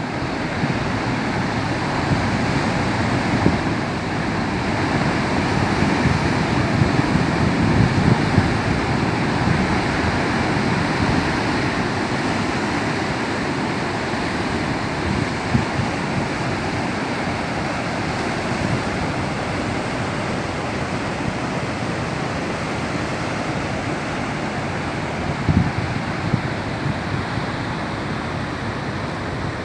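Rough, choppy sea: continuous surf with waves breaking and washing, swelling a little in the first third, with wind buffeting the microphone in short low gusts.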